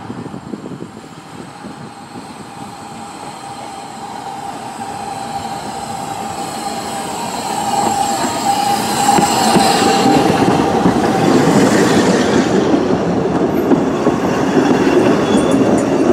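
Narrow-gauge steam train drawing slowly into a station, growing steadily louder as it nears. A drawn-out metallic squeal sounds through the middle, then the carriages roll past with a rhythmic clatter of wheels.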